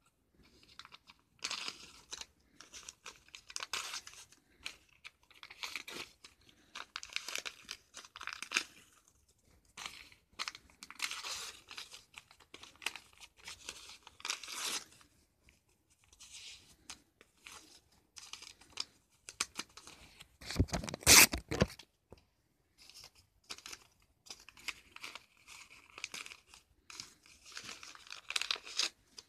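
Paper DVD sleeve being torn and crumpled by hand in irregular rips and rustles, with one much louder burst about two-thirds of the way through.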